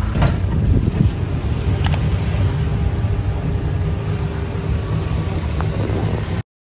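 Steady rumble of a moving passenger tricycle, heard from inside its cab, with a light click or two of rattle. It cuts off suddenly near the end.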